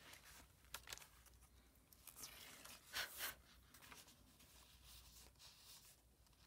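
Paper being cut by hand: faint, short scratching cuts, a few louder strokes about three seconds in.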